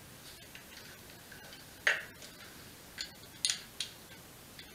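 Scattered light clicks and taps from hands handling an alloy handlebar, its stem clamp and cables. The sharpest knock comes about two seconds in, with a quick cluster of clicks near three and a half seconds.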